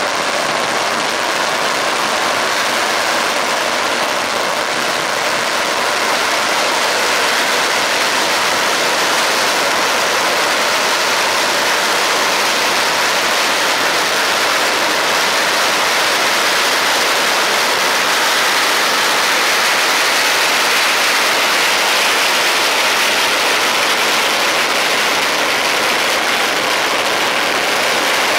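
Strings of firecrackers going off in a dense, unbroken crackle, loud and steady, growing slightly louder a few seconds in.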